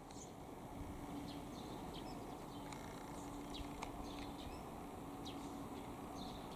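Birds chirping in short, scattered high calls over a faint steady hum and low outdoor background noise.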